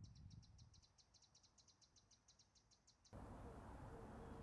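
Faint, rapid, high chirping, evenly pulsed about eight times a second, that stops about three seconds in, followed by faint steady outdoor background noise.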